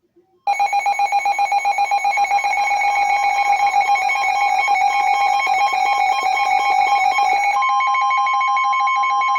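Emergency weather alert tone: a loud, rapidly pulsing alarm tone comes on about half a second in, and a steady, slightly higher tone joins it near the end. The tone marks the start of a new alert, here a severe thunderstorm warning.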